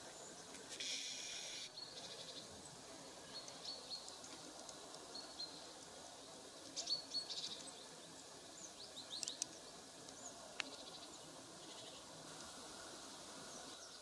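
Small songbirds in a pine tree giving short, high chirps and call notes in a few scattered clusters over faint steady background noise.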